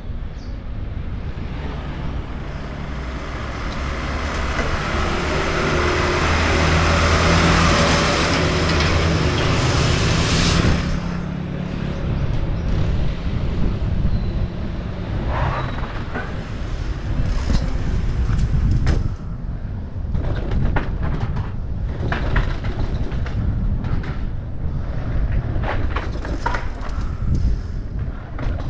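For about ten seconds a rushing noise grows over a low mechanical drone, then cuts off abruptly. After that a mountain bike clatters and rattles over rough ground, with many sharp, irregular knocks.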